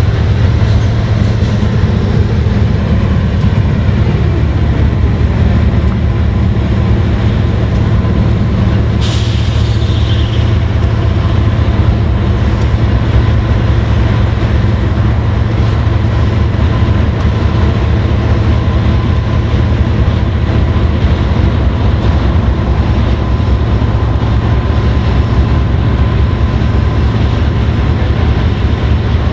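BNSF GE diesel freight locomotives and a double-stack intermodal train running past with a loud, steady low rumble. A short hiss sounds about nine seconds in.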